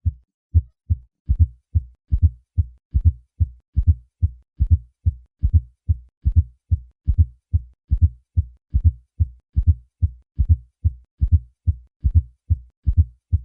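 Heart sounds as heard through a stethoscope: a steady run of short, low-pitched thuds, several a second, in a lub-dub rhythm with an added fourth heart sound (S4 gallop) just before each first heart sound. This is the sign of a stiff, poorly compliant ventricle, as in hypertension.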